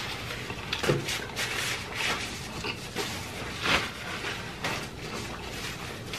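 Close-miked mouth sounds of a person chewing food, with a paper napkin rustling as it wipes the mouth and is put down. The sound is a string of irregular soft chewing and rustling noises, a few louder ones among them.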